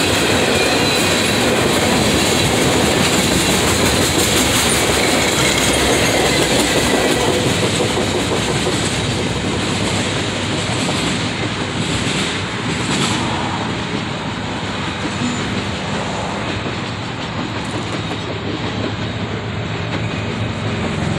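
Freight train of railway tank cars rolling past, steel wheels running on the rails. About eight to ten seconds in, the high end of the sound fades as the last car passes and the train rolls away, leaving a duller running sound.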